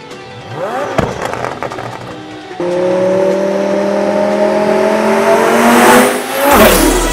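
Twin-turbo Lamborghini Huracán V10 accelerating hard: the engine note cuts in abruptly about two and a half seconds in and climbs steadily in pitch for about three seconds, then a loud rushing sweep. Background music with deep bass comes in near the end.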